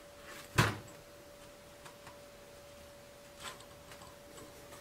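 A single sharp metal knock about half a second in as the steel tilt-cylinder gland is set down on the sheet-metal workbench, followed by a few faint clicks and a softer knock from handling the part while fitting its seal.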